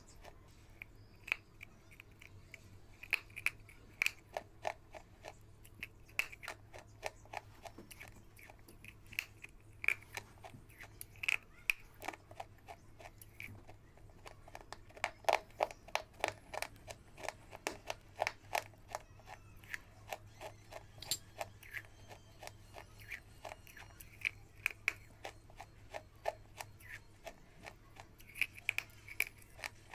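A person biting and chewing crunchy brown pieces of food: sharp crackly crunches in quick runs, densest around the middle, over a faint steady low hum.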